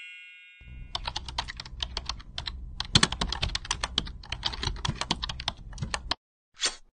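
Typing sound effect: rapid keystroke clicks over a low hum, running while on-screen text types out, then stopping sharply about six seconds in, with one last short burst near the end. The ringing tail of a ding fades away in the first second.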